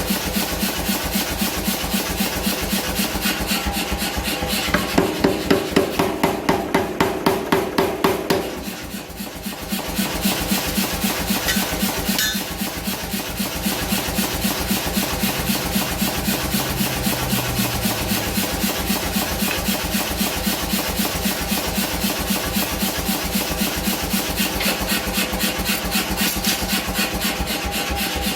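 A grinder touching up the H13 steel punch, running steadily with a fast, even ticking, and louder grinding passes around the fifth to eighth seconds.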